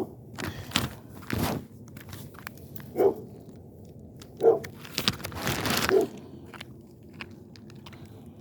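Rocks being picked up and handled on gravelly ground: a series of crunches and knocks, the longest and busiest stretch about five to six seconds in, with footsteps crunching on gravel.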